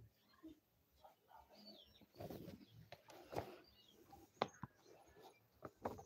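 Near silence: faint room tone with scattered small clicks and knocks and a couple of brief, faint high chirps.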